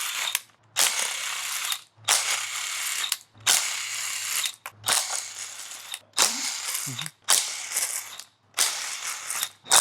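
A ratchet wrench clicking in repeated runs of about a second each, with short pauses between them, as bolts are backed out of the top of the engine on the way to removing the valve cover.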